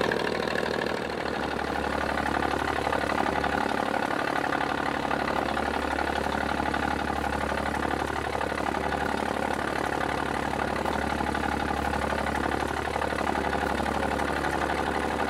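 A fishing boat's engine running steadily at idle.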